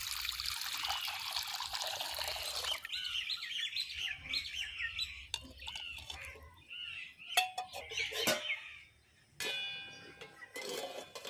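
Water running from a tap, shutting off about three seconds in, while small birds chirp repeatedly throughout. A few sharp clicks come about two-thirds of the way in, and a short pitched sound near the end.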